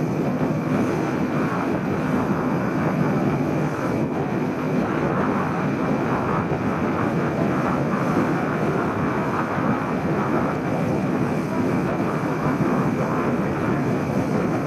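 Steady drone of a passenger ferry's engines under way, heard from on board with a rushing water-and-wind noise over it.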